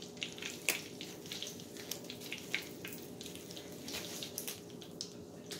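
Hot oil sizzling in a cast iron skillet while pork chops fry: a steady hiss with scattered crackling pops.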